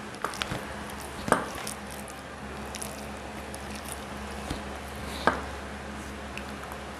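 Fingers squishing and mixing boiled vegetables and rice on a plate, with a few short sharp clicks, the loudest about a second and a half in and another a little after five seconds.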